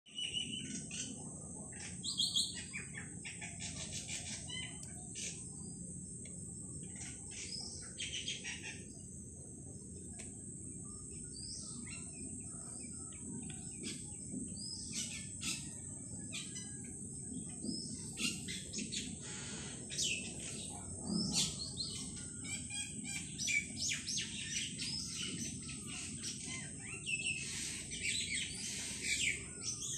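Small birds chirping, many short high calls coming in quick clusters, over a steady high-pitched whine and a low background hum.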